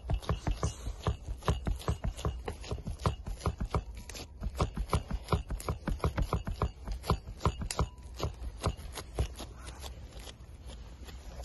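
Gloved fingers patting and pressing raw minced beef flat onto lamb caul fat on a wooden board: quick, irregular soft pats and taps, several a second, a little quieter near the end.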